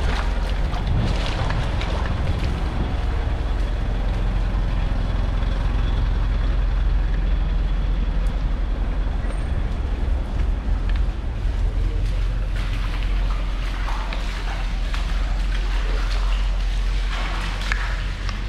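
Wind buffeting the microphone in a steady low rumble, over a hiss of street and water noise.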